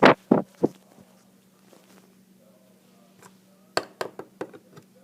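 Sharp handling taps or knocks, about three right at the start and a quick run of about five a little under four seconds in, over a faint steady hum.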